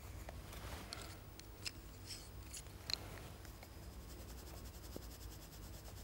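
Coloured pencil scratching on sketchbook paper in short, faint, irregular strokes, with a couple of sharper ticks, over a low steady room hum.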